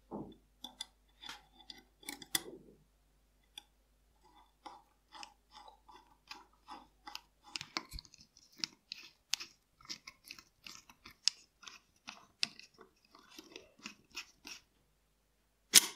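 Small screwdriver turning screws in a steel revolver frame: a run of irregular short metallic clicks and scrapes, with one sharp, louder click near the end.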